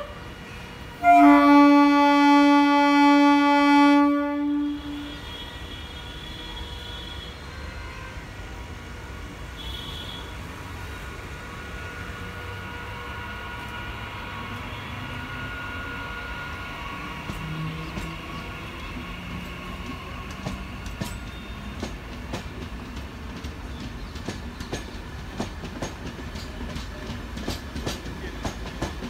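MEMU electric local train sounding a single horn blast of about three seconds. Then its traction motors whine, rising in pitch as it gathers speed past the platform, while the wheels clack over rail joints more and more often toward the end.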